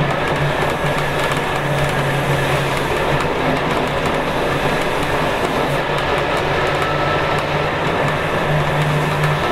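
Scania K280UB city bus heard from inside the cabin on the move: its rear-mounted 9.3-litre inline five-cylinder turbo diesel running with a steady low hum, over road noise and rattling from the bus interior.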